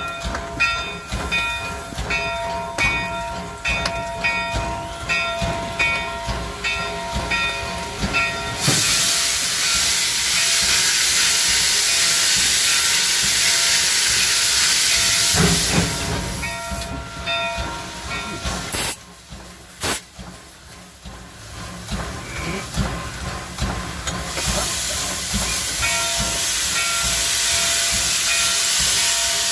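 The 1875 steam locomotive INYO heard from its cab while under way. For the first eight seconds or so there is a rhythmic, evenly repeating beat. Then loud steam hissing comes in about nine seconds in and lasts about seven seconds, and it starts again about twenty-four seconds in.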